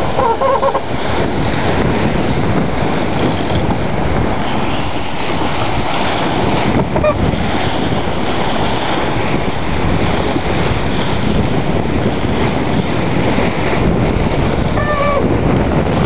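Wind buffeting the microphone over rushing water from the hull and wake of a Mini Transat sailboat sailing fast: a loud, steady rush.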